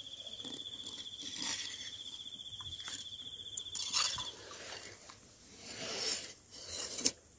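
A cricket-like insect trilling steadily at a high pitch, stopping about four seconds in. Under and after it come scraping and rustling as a hand tool digs into damp soil and plants are handled, with a sharp click near the end.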